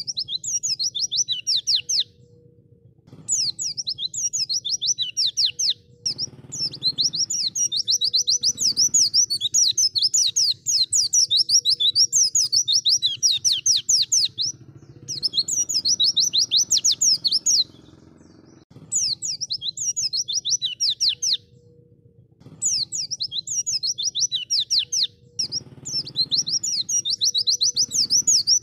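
White-eye (pleci) singing in long, rapid twittering bouts of fast zigzagging high notes, broken by short pauses of about a second.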